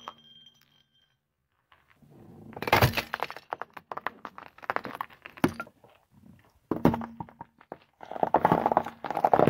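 A car tyre rolling over objects on asphalt. A terracotta pot cracks and breaks into shards in a run of sharp cracks and crunches, with a lone sharp crack a few seconds later. Near the end a row of plastic-wrapped ice pops crunches under the tyre.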